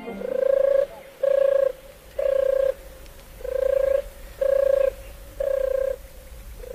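Turtle doves purring: a low trilled coo repeated six times at an even pace, about one a second, each lasting about half a second on the same pitch.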